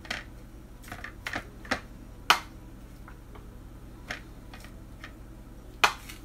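Irregular sharp clicks and taps of a metal fork against crisp hard taco shells and a metal bowl as shredded lettuce is loaded in, the loudest about two seconds in and near the end.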